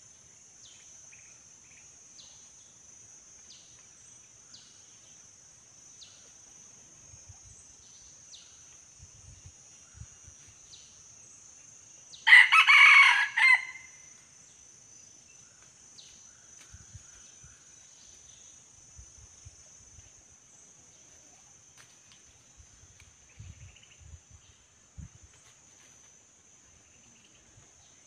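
Male red junglefowl crowing once, a short crow about twelve seconds in, over a steady high-pitched insect drone.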